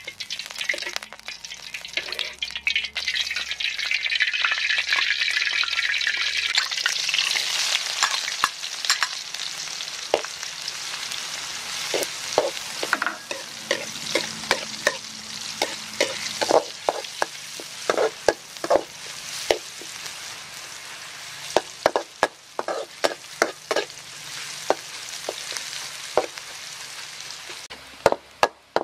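Sliced shallots frying in hot oil in a steel wok: a loud sizzle for the first several seconds that then settles to a quieter sizzle. From about ten seconds in, a metal spatula scrapes and clinks against the wok again and again as the shallots are stirred.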